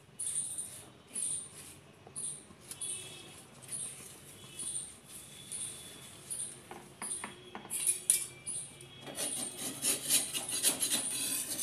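A flat spatula scraping and clicking against a hot iron tawa as it slides under a kulcha, loudest from about eight seconds in. Throughout, a soft high-pitched chirp repeats roughly every two-thirds of a second.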